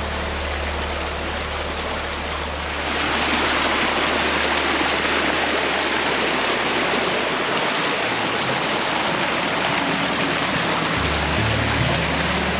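Rushing mountain water, a dense steady rush that grows louder and brighter about three seconds in. A low steady hum runs underneath and drops out for a few seconds near the end.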